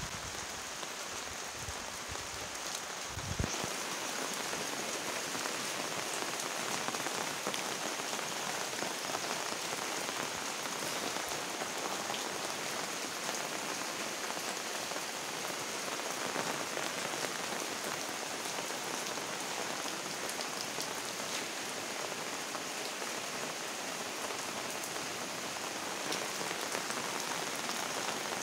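Steady rain falling on garden plants and leaves, an even dense hiss of drops. A few low thumps in the first few seconds.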